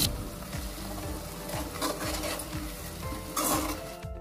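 A metal slotted spoon stirring and scraping a thick ground onion-garlic masala paste as it fries in oil in a kadhai, with a light sizzle. The louder scrapes come about a second and a half in and again at about three and a half seconds. Soft background music plays underneath.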